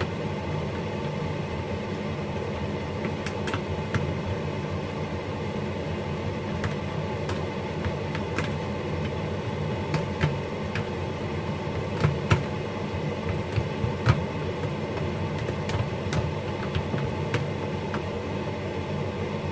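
A spoon stirring a chicken and egg batter in a plastic container, with scattered clicks and knocks against the container, over a steady low hum.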